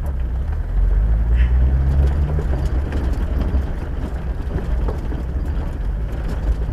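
Vehicle driving on a dirt track: low engine and road rumble, the engine note rising over the first two seconds or so and then holding steady, with a few small knocks from the rough ground.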